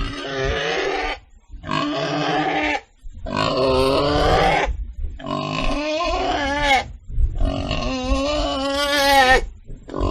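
A pig calling loudly in a run of long, drawn-out pitched calls, each lasting one to two seconds with short breaks between them.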